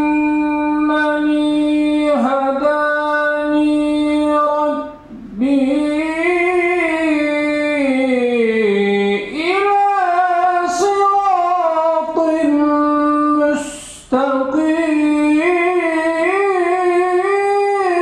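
A man reciting the Quran in the melodic, drawn-out style (tilawah) into a microphone. He sings long, ornamented phrases with held and gliding notes, pausing briefly for breath three times.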